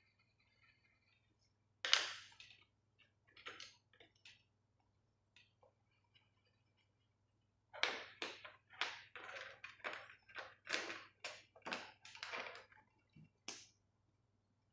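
Plastic felt-tip markers clattering and knocking against each other and the tabletop as a hand rummages through a pile of them: a quick, uneven run of knocks and rustles from about eight seconds in, after a few scattered taps and scratches.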